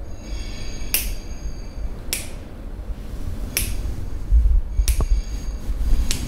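Five sharp snapping clicks, irregularly about a second apart, a few followed by a faint high ring, over a low rumble of handling.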